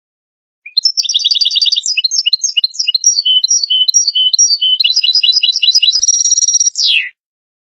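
European goldfinch singing one phrase of about six seconds: fast twittering trills and repeated high notes, a buzzy stretch near the end, and a final falling note.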